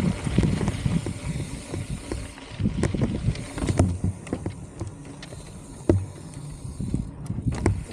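Mountain bike rolling over a rough dirt trail: irregular knocks and rattles from the bike over bumps and rocks, with wind noise that drops away about two seconds in.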